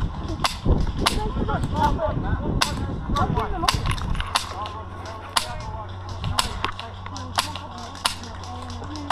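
Sporadic single cracks of airsoft gunfire, sharp snaps at irregular intervals about one or two a second. A steady low hum sets in about four seconds in.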